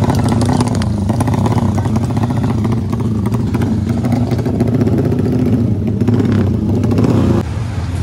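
Engine of a Honda 300 cc drag-racing motorcycle running at a fast idle, its pitch rising and falling slightly as the throttle is worked.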